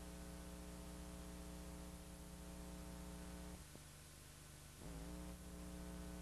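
Faint steady electrical mains hum with a buzzy stack of overtones. It weakens for about a second past the middle, then comes back with a brief waver in pitch.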